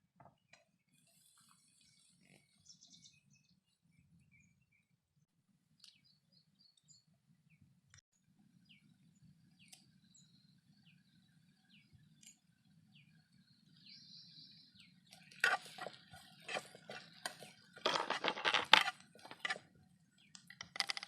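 Mostly faint ticks at first, then, in the last several seconds, a utensil scraping and clinking in a frying pan as vegetables are stirred, loudest a few seconds before the end.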